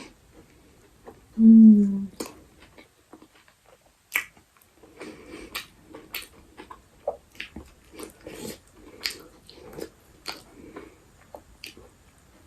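Close-miked mukbang eating sounds: a person biting and chewing, with wet mouth clicks and a steady chewing rhythm of about two chews a second in the second half. About a second and a half in, the eater gives a short hummed 'mm', the loudest sound.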